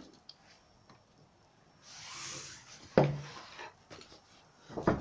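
Wooden knocks and scraping as someone moves through a debris-strewn derelict building. A brief scraping rustle comes about two seconds in, then a sharp hollow wooden knock about three seconds in, then another thump near the end.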